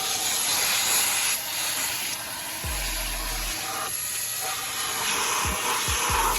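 Hart 3-in-1 wet/dry vacuum running in plain vacuum mode, with a steady rush of air and a thin high whine. The rush changes as the nozzle is moved, and there are a few low bumps in the second half.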